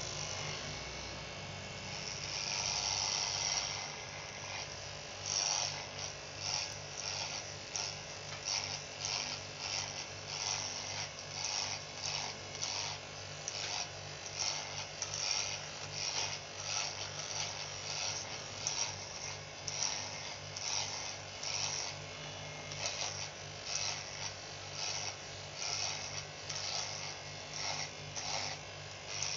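Electric hair clippers buzzing steadily while being run through short hair. A brighter rasp repeats roughly twice a second with each pass across the scalp.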